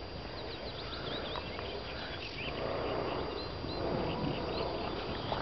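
Small birds chirping and singing, many short quick calls, over a steady rustling noise and low wind rumble on the microphone that grows a little louder about halfway through.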